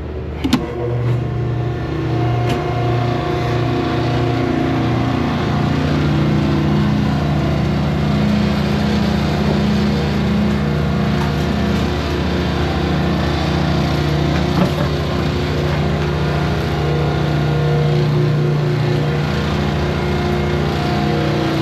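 A pump starting up to pump water out: a click about half a second in, then a motor runs up and keeps running with a steady hum.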